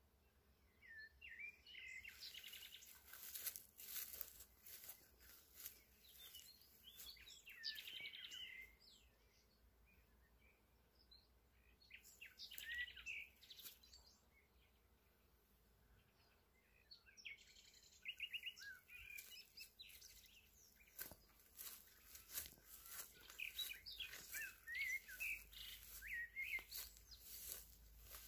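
Songbirds singing short warbling phrases every few seconds in the treetops, with scattered faint clicks.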